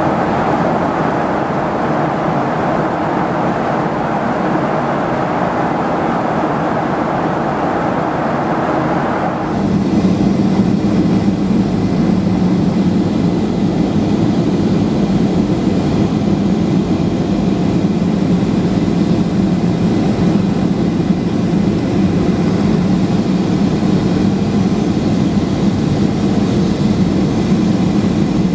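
Cabin noise of a Boeing 737-800 heard from a seat beside its CFM56-7B turbofan engine: a steady noise of engine and rushing air at cruise. About a third of the way in it changes abruptly to a deeper, slightly louder steady rumble as the jet descends at lower altitude.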